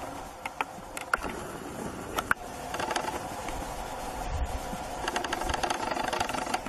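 A giraffe browsing, with sharp snaps and crunches of twigs and leaves as it strips and chews them. The snaps are scattered at first, then come in quick rattling runs about three seconds in and again from about five seconds in.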